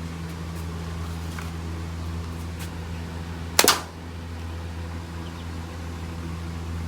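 A pistol fires once: a single sharp crack about three and a half seconds in. A steady low hum runs underneath.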